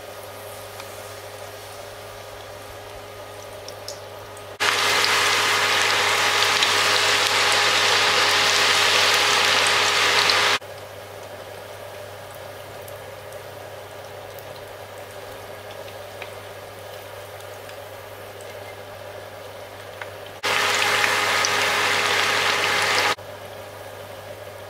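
Vegetable fritter batter frying in hot oil in a pan: loud sizzling that starts and stops abruptly twice, about five seconds in for some six seconds and again near the end for about three seconds. A steady hum runs underneath.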